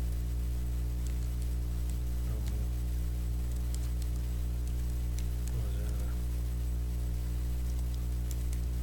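Steady low electrical mains hum in the recording, with faint computer-keyboard keystroke clicks scattered through it as a file name is typed, and a couple of brief soft vocal sounds.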